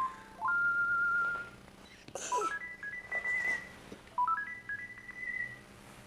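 Sony Aibo robot dog playing short electronic beep melodies: three runs of pure tones that step upward in pitch, each ending on a held note.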